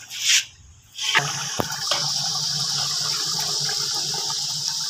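Masala sizzling and hissing steadily in a large aluminium deg (cooking cauldron), with a low rumble underneath. A short loud rush comes a fraction of a second in, then a brief dip, before the steady sizzle settles in about a second in.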